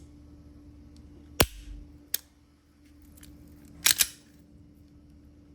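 Sharp metallic clicks from a Smith & Wesson Bodyguard 2.0 pistol being dry-fired: a loud click about a second and a half in, a lighter one shortly after, and a quick double click near four seconds, the trigger breaking and resetting.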